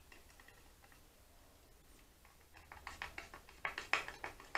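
A string of quick, light metallic clicks and ticks from a screwdriver turning screws and their retaining clips on a Honda CBR400 carburettor's trumpet plate. They start a little past halfway and are loudest near the end.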